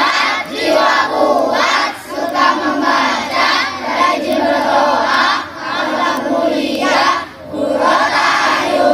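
A group of children singing and shouting together loudly, in phrases broken by short pauses.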